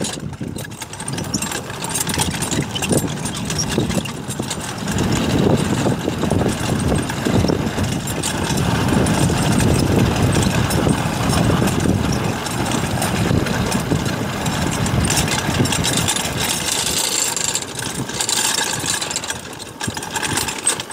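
Pedal go-kart's hard yellow tyres and metal frame rumbling and rattling over a rough gravel and dirt track as it coasts downhill, loudest about midway through.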